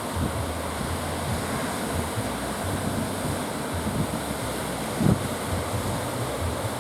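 Sea surf breaking steadily under strong wind, with gusts buffeting the microphone in low, uneven thumps, the strongest about five seconds in.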